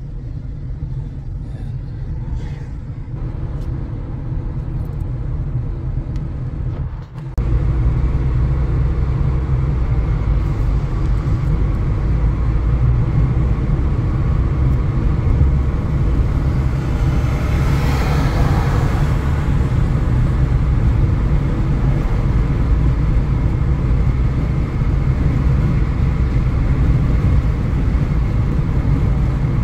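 A car being driven: a steady low rumble of engine and road noise. It dips for a moment, then steps up louder about seven seconds in. A brief swell of hiss comes a little past the middle.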